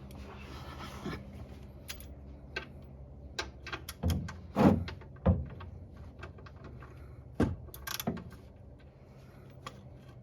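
Uneven knocks, clicks and clunks of hands working at the oil pan: the loosened drain plug and a plastic catch bottle being handled while the engine oil is drained. The loudest thuds come a few seconds in, then again a couple of seconds later, over a steady low hum.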